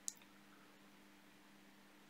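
Near silence: faint room tone with a steady low hum and one tiny click just after the start.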